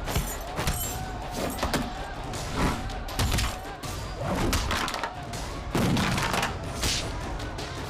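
Fight-scene sound effects: a string of punch and kick impacts at irregular intervals, over background music.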